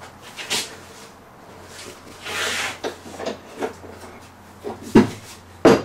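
Wooden knocks and thumps of heavy scaffold boards being pushed and shifted into line on the bench, with a short scrape about two seconds in and the loudest knocks near the end.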